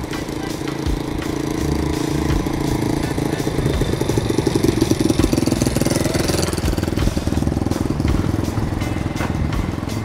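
A small motorcycle engine pulling a sidecar cart, running with a fast, even putter. It grows louder as the motorcycle passes close by about halfway through, then fades.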